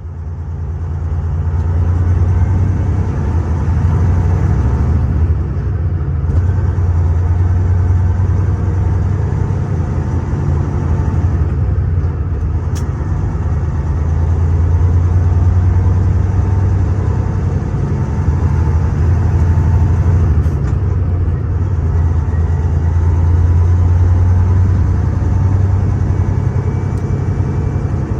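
Detroit Diesel 14-litre inline-six diesel in a Freightliner Century semi truck running steadily, with a deep low hum that swells gently. It fades in over the first couple of seconds.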